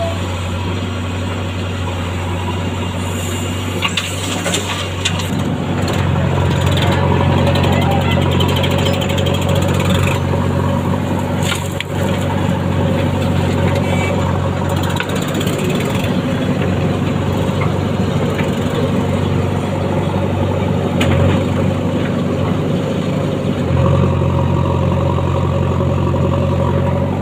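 Heavy diesel engine running steadily at working speed. Its note steps up about five seconds in and again near the end, with scattered clanks and knocks over the first half.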